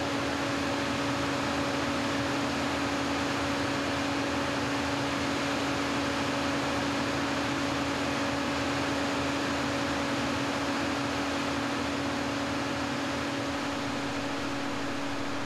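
Steady machinery noise: a constant hiss with a steady hum, unchanging throughout.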